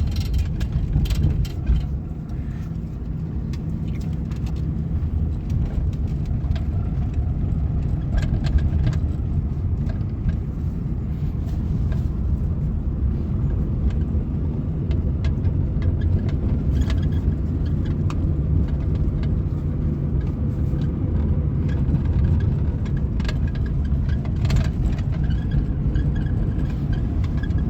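Road and drivetrain rumble inside the cabin of a 1998 Suzuki Baleno on the move, with scattered sharp clicks and rattles throughout. This is the cabin rattle and creak being hunted, which the mechanic suspects comes from behind the dashboard's sound-deadening trim.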